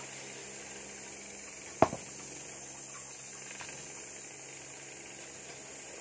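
Steady low hum with a high hiss, broken by one sharp knock about two seconds in and a couple of faint taps later, as curved strips of cut rubber tire are handled.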